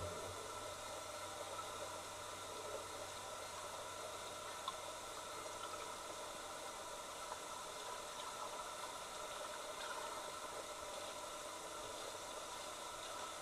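Steady hiss of an underwater camera recording in a pond, with a faint steady hum and a few soft ticks; a single sharper click a little under five seconds in.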